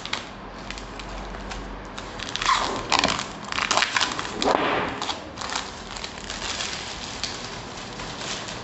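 Thin clear plastic shrink wrap crinkling and crackling as it is pulled off a cardboard box. It is loudest between about two and five seconds in, then drops to quieter rustling.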